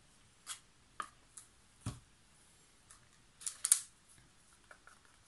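Plastic paint cups and a wooden stir stick being handled: several separate light clicks and a dull knock about two seconds in, then the loudest moment, a short flurry of clicking and scraping, a little past three and a half seconds.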